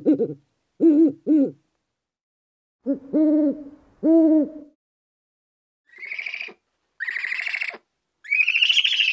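Owl hooting: a quick run of short hoots in the first second and a half, then two longer hoots a few seconds in. In the last three seconds come higher, rasping calls.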